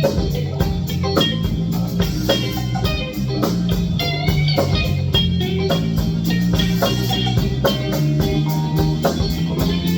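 Band playing music with guitar and a drum kit over a steady beat.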